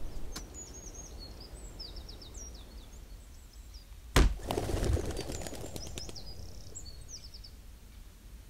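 Small birds chirping in the background, short high chirps repeated. About four seconds in comes a single sharp thunk, followed by a brief rattling that dies away over a couple of seconds.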